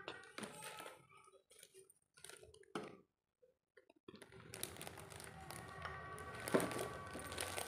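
Light clicks and rustles of plastic parts being handled, such as mixer jars and lids, with a break of near silence about halfway through.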